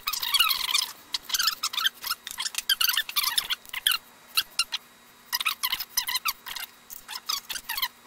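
Hand socket ratchet clicking and squeaking in quick runs with short pauses as bolts on the engine block's main caps are run down.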